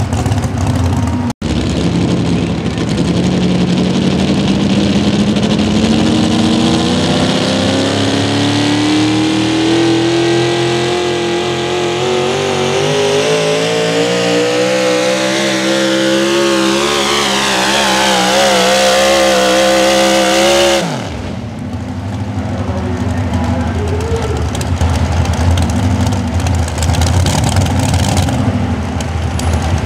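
A pulling vehicle's engine run hard down the track, its pitch climbing steadily for about twenty seconds. Near the end it is shut down abruptly, the pitch falling away fast, and a lower engine rumble carries on.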